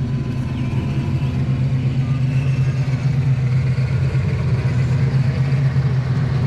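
Small engine of a ride-on miniature diesel-style locomotive running steadily as it hauls passenger cars along the track, growing louder as it approaches.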